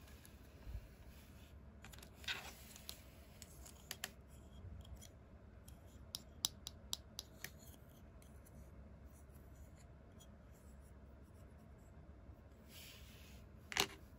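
Small plastic parts of a Hello Kitty ambulance playset being handled and fitted together: scattered light taps and clicks, a quick run of ticks about six to seven seconds in, and one sharper click near the end.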